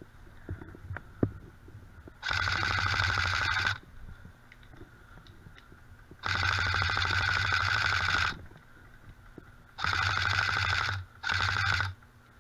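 Airsoft electric rifle (AEG) firing four full-auto bursts, a rapid buzzing rattle of the gearbox cycling. The first two bursts last about one and a half to two seconds, and the last two are shorter, about a second and half a second.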